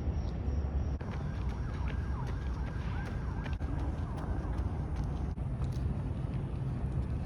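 Outdoor city traffic: a steady low rumble of road vehicles, with a run of short, high whistling glides from about one to four seconds in.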